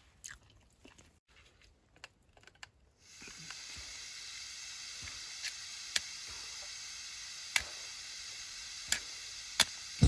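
Gas hissing steadily from a portable camping stove's burner, starting suddenly about three seconds in as the valve is opened. Over it come several sharp, short scratches of matches being struck to light the burner.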